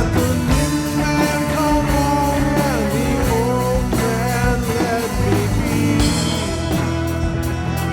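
Background rock-style song with guitar and drums, a bending melody line carrying it between sung verses.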